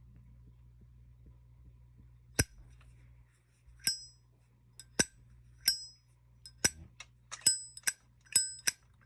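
Zippo lighter's hinged lid snapped open and shut repeatedly: sharp metallic clicks, each with a short ringing ping, starting a couple of seconds in and coming faster toward the end. The lighter has gone two weeks without maintenance, which the owner says makes its sound noticeably different.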